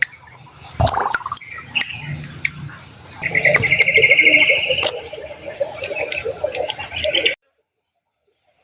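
Riverside ambience of birds and insects: a steady high insect drone, with a fast chirping trill for about a second and a half around three seconds in. The sound cuts off abruptly about seven seconds in.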